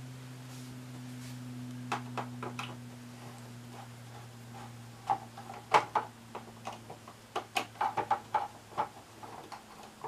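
Screwdriver and hands working the screws and trim of a propane fridge's top cover: scattered small clicks, taps and knocks, a few about two seconds in and a busy run in the second half. A steady low hum runs underneath and slowly fades.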